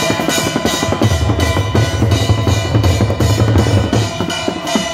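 Processional drums beaten with sticks in a fast, steady rhythm, with a deep low boom and a sharp high accent about three times a second.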